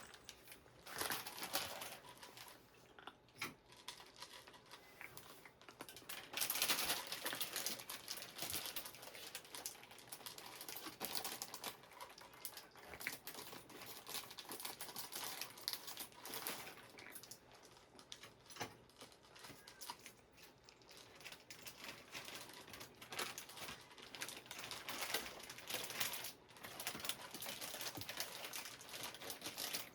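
Cats crunching dry kibble, a dense run of small irregular crackling clicks.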